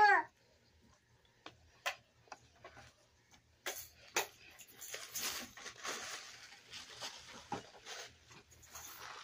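A few light clicks, then a thin white wrapper being handled, crinkling and rustling continuously from about three and a half seconds in.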